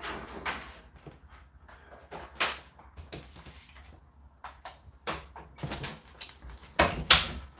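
Indesit IDC8T3 condenser tumble dryer running, its drum turning with a steady low hum while the laundry tumbles, giving irregular knocks and clatters, the loudest near the end.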